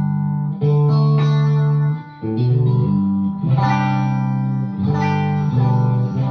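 Electric guitar played straight into a Suhr Badger amp through a short cable with no pedals: the dry, unbuffered tone. Chords are struck about six times and left ringing, with a brief gap about two seconds in.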